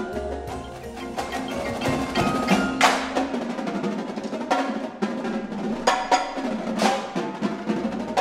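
Indoor percussion ensemble playing: marimbas and other mallet keyboards ring out over drums, with a low bass tone held under the first couple of seconds and sharp accented hits about three and seven seconds in.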